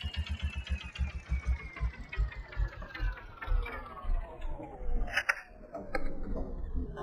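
An engine running with a rapid, uneven low thumping and a slowly falling whine, with a sharp click about five seconds in.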